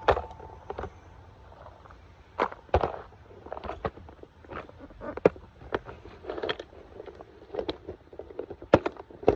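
A string of irregular knocks and taps, some of them sharp, coming every half second or so at uneven spacing.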